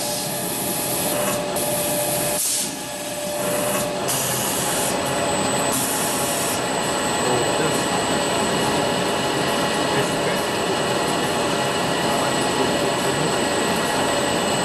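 TZ-DHX-N paper hand towel log saw cutting machine running: a steady mechanical noise with a thin high whine. In the first seven seconds there are four short hissing rasps as the saw cuts through the towel stacks.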